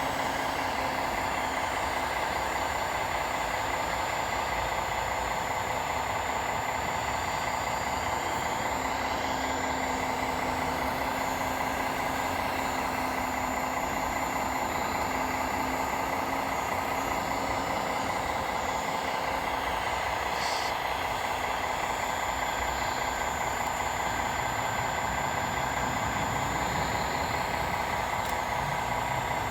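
Radio-controlled scale model trucks running, a steady mechanical whine and hum from their drives and engine-sound units.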